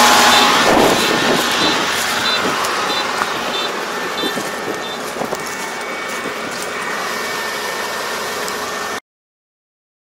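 Combine harvester running, with a short back-up warning beep repeating about every two-thirds of a second for a few seconds. The machine noise slowly grows quieter, then cuts off abruptly near the end.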